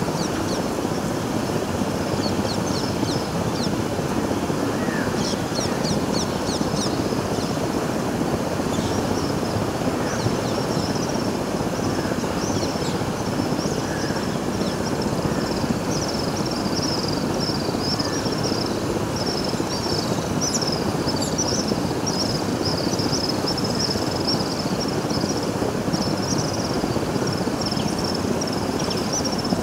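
Steady rushing noise of wind on the microphone, with many short, high bird chirps over it that grow busier in the second half.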